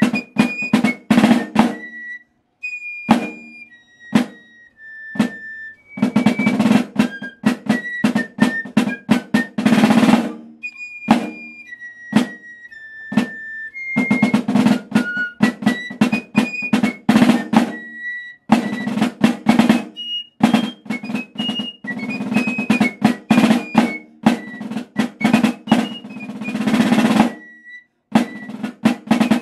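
A Basel piccolo and a Basel drum playing a duet: the piccolo holds high sustained notes of a melody while the drum alternates long passages of dense, rapid rolls with sparser single strokes.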